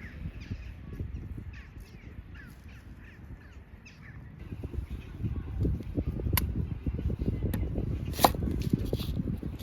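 Birds calling: a run of short falling chirps in the first few seconds, then a few louder sharp calls near the end, over a low rumble of wind on the microphone.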